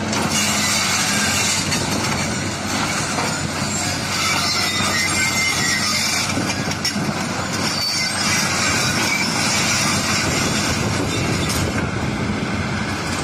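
Hitachi hydraulic crawler excavator working in sand: its diesel engine runs steadily under load as the arm digs, swings and dumps, with a high metallic hiss and squeal over the engine hum.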